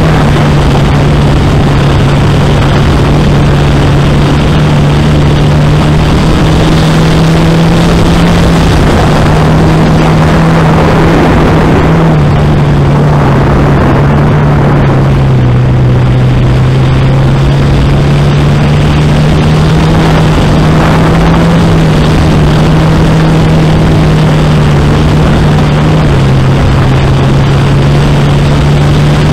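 2005 Dodge Neon sport compact race car's 2.0-litre single-cam four-cylinder engine running hard under load, heard from inside the car over a loud rush of wind and dirt-track noise. The engine note holds steady and steps down slightly around halfway and again near the end.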